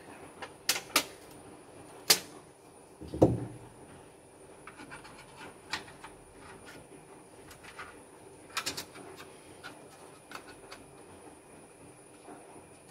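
Clicks and taps of plastic and metal laptop parts handled by hand as the hard-drive bracket is worked out of the opened laptop base. There is a heavier knock about three seconds in and a quick run of clicks later on.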